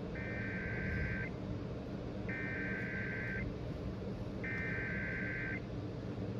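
Emergency Alert System SAME header: three bursts of rapid warbling data tones, each about a second long with about a second between them, heard over FM radio with a steady low hum and hiss underneath. The bursts are the coded header that opens an alert activation, here for a severe thunderstorm warning.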